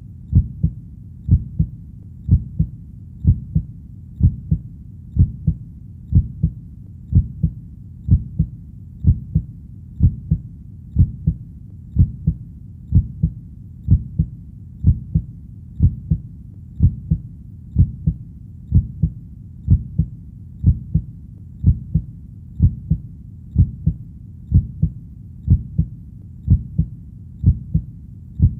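Heartbeat: a steady lub-dub, each beat a close pair of low thumps, about one beat a second.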